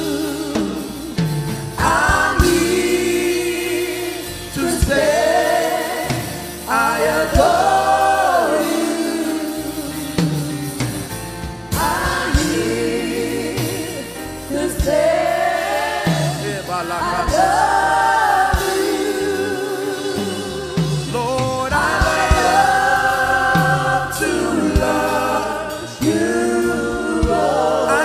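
Gospel worship song sung by a choir with musical accompaniment, in long sung phrases.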